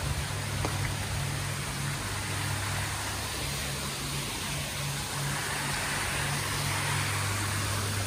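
Steady rushing of an artificial waterfall pouring into a pool, with a low steady hum underneath.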